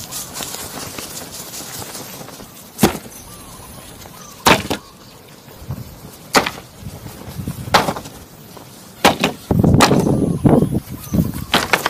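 Wood being chopped by hand: a series of sharp single strikes about every one and a half to two seconds, closer together near the end, with a rough noisy stretch of about a second around ten seconds in.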